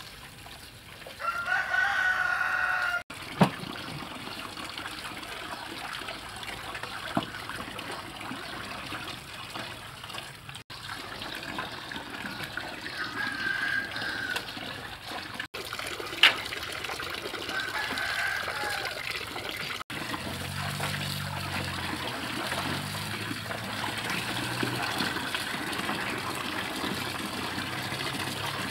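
A rooster crows loudly about a second in, and fainter crows come later, over the splash of tap water running into a metal basin of vegetables.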